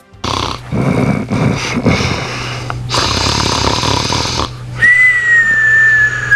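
Cartoon-style snoring: a rattling snore in, a hissing breath out, then a long whistle that falls slowly in pitch.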